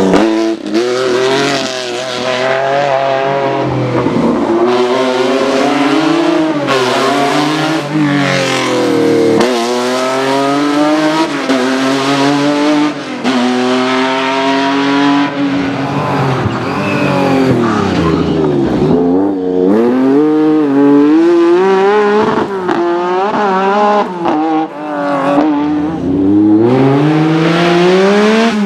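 Lancia Stratos rally car at full effort: the engine revs hard, climbing in pitch through the gears and dropping sharply on lifts and downshifts several times, with the deepest dip a little past the middle.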